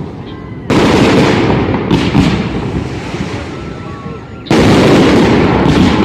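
Fireworks going off: a loud bang about a second in and another about four and a half seconds in, each followed by a couple of sharper cracks and a long fading rumble.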